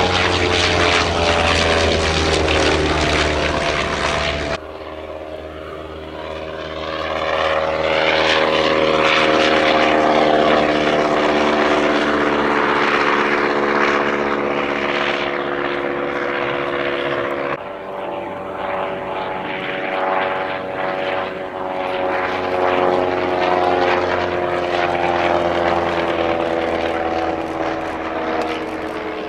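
Clerget 9B nine-cylinder rotary engine of a reproduction Sopwith Triplane droning in flight, its pitch drifting slowly down and up as the aircraft passes. The sound changes abruptly twice, about four and a half seconds in and again near eighteen seconds.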